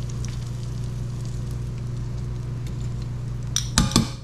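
Floured frog legs frying in hot oil: a steady soft sizzle with faint crackling over a low hum. Near the end, a few loud metal clanks of a utensil against the pan.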